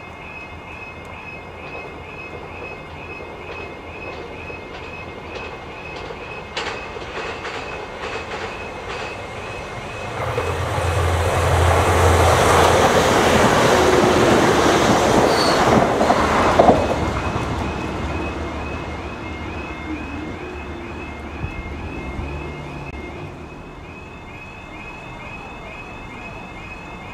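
Diesel-hauled Network Rail test train with Class 31 locomotive 31459 running past: a low engine rumble and wheel-on-rail noise build about ten seconds in, are loudest for several seconds as the train goes by, then fade away. A repeating electronic alarm warbles steadily before and after the passing.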